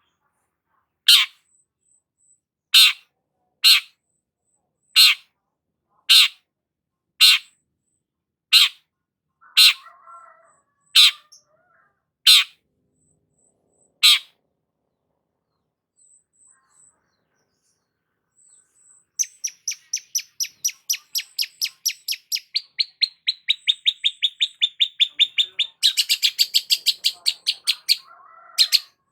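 Long-tailed shrike (cendet) calling. It gives a series of short, sharp notes about a second apart. From about two-thirds of the way in, it switches to a fast rattling chatter of about a dozen notes a second, which falls a little in pitch and gets louder near the end.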